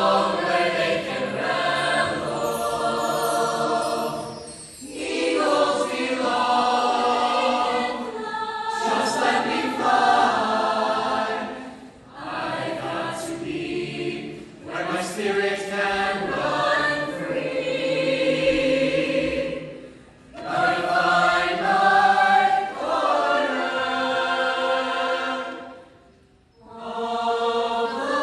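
Show choir of mixed male and female voices singing in harmony. The phrases break off in several short pauses, the deepest about two seconds before the end.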